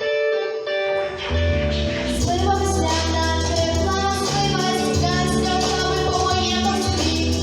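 Pop song with a singing voice over an instrumental backing; the bass drops out for about the first second, then comes back in.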